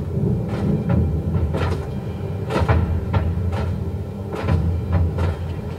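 Film soundtrack: a steady low rumble with irregular sharp knocks or crunches, about one or two a second.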